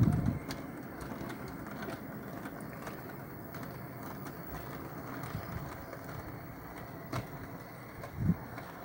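O gauge model goods train rolling along the track: a steady rumble of metal wheels on the rails, with a sharp click about seven seconds in.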